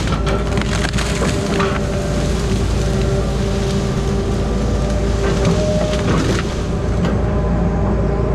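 Wood cracking and splintering as a grapple saw cuts through and breaks off a section of tree, heard over the steady running of the machine's engine with a held whine. The crackling comes in a long stretch at the start and again near the end.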